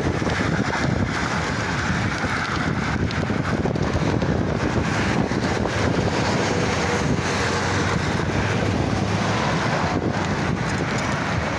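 Steady wind rushing over the microphone of a moving bicycle, mixed with road traffic passing alongside.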